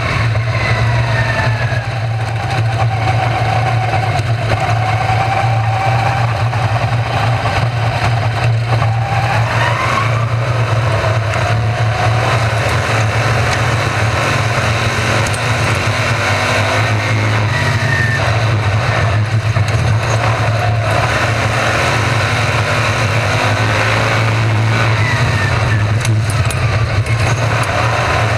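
RaceSaver sprint cars' 305 V8 engines racing around the track, loud and continuous. Several engine notes rise and fall in pitch as the cars come past and go away.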